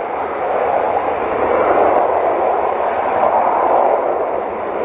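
Jet engines of a Boeing 787 Dreamliner running on the ground, a steady rushing roar that swells and eases slightly.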